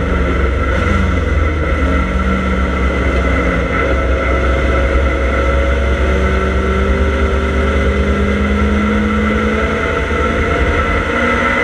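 Triumph Dolomite Sprint race car's 16-valve slant-four engine running hard at full throttle, heard from inside the stripped cabin. The engine note climbs slowly in pitch in the second half, with a constant low rumble of road and wind noise underneath.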